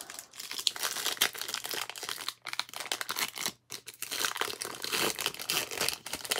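Foil wrapper of a 2011 Donruss Elite baseball card pack being torn open and crinkled by hand, a continuous crackling with two brief pauses.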